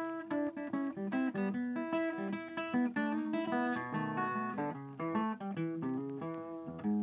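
Background music: acoustic guitar playing a quick, continuous run of plucked notes.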